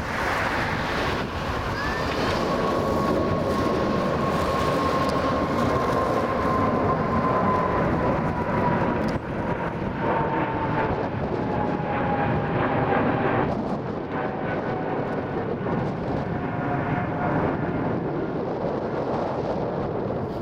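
Boeing 777-300 airliner's twin jet engines at takeoff thrust passing the observer: a steady roar with a whine that falls slowly in pitch. Wind gusts buffet the microphone.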